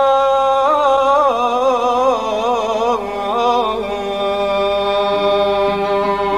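Kurdish song: a man's voice holds a long note, then about a second in breaks into a wavering, ornamented melisma of about three seconds, over a steady sustained accompaniment note.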